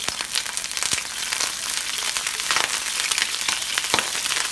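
Broccolini spears sizzling and crackling in hot garlic-flavoured olive oil as they land in the frying pan, with frequent sharp pops of spatter where water on the freshly washed stalks meets the oil.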